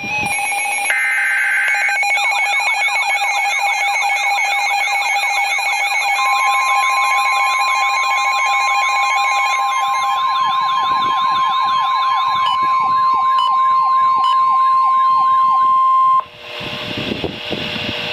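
A burst of screeching EAS digital header tones about a second in, then several weather radios' siren alarms wailing up and down at different speeds, joined about six seconds in by the steady 1050 Hz NOAA Weather Radio warning tone, which signals a warning is being broadcast. The sirens and tone cut off together near the end, leaving a moment of radio hiss.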